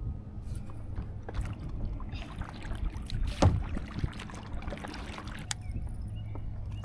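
Small boat being handled on the water: scattered knocks and clicks over a steady low hum, with one sharp knock about three and a half seconds in.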